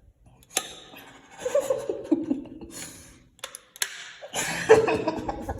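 A person's voice making short laughing sounds in two spells, the first falling in pitch, with three sharp clicks among them. No alarm bell or horn sounds.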